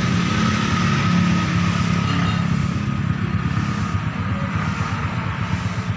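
Small motorcycle engine running steadily with a rapid low pulsing, and a faint whine over it that fades out a couple of seconds in.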